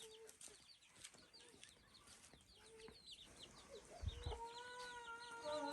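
Village chickens: rapid high peeping and clucking, then about four seconds in a rooster starts a long, drawn-out crow, just after a brief low thump.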